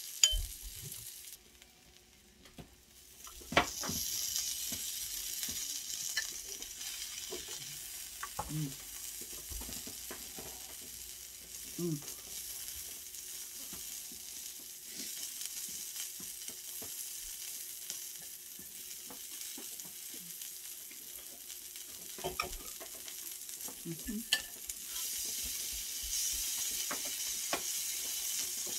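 Thin-sliced steak and asparagus sizzling on a hot tabletop stone grill, with scattered clicks of metal tongs turning the meat. The sizzle drops off briefly near the start, then comes back and grows louder near the end.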